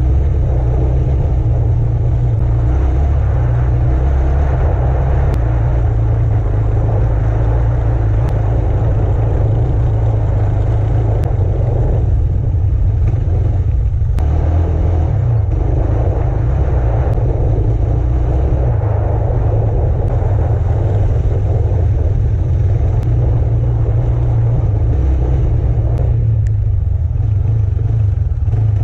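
Off-road vehicle engine running along a rocky trail under a steady low rumble, the engine note rising and falling with the throttle.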